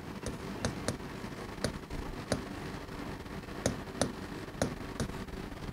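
Chalk tapping and clicking against a blackboard while writing: about nine sharp clicks at uneven intervals.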